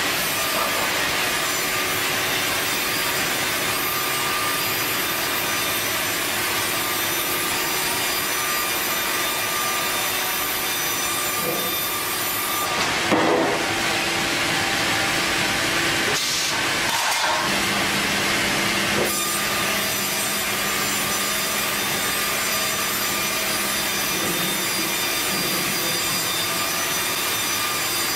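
Sawmill saw cutting lengthwise through a log as the carriage feeds it: a steady sawing hiss over a constant machine hum. There is a brief louder jolt about halfway through, and the hum drops in pitch a little later.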